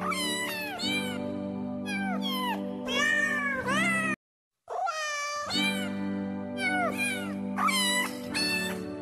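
Domestic cat meowing over and over, many short pitch-bending meows in quick succession, set over background music of steady held low notes. The sound cuts out completely for about half a second a little past four seconds in.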